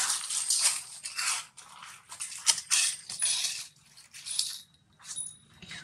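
Dry leaves crackling and rustling in irregular bursts as a baby macaque handles and moves among them, thinning out after about four seconds.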